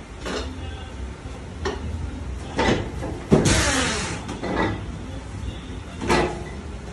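Low steady machine hum from a card-cutting machine, with six irregular knocks and clunks as stacks of card are pushed about on its steel feed table. The loudest, about halfway through, is a sharp metallic clank that rings on for about a second.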